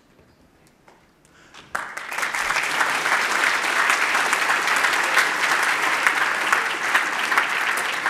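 Audience applauding: the clapping starts abruptly about two seconds in after a short quiet stretch and holds steady.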